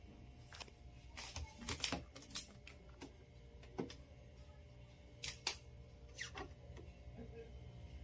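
Faint, scattered clicks and taps from a top-loading washing machine's plastic lid and body being handled as the lid is opened, some coming in quick clusters.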